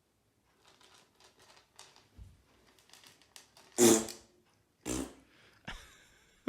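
Faint rustling, then a loud fart about four seconds in, followed by two shorter blasts.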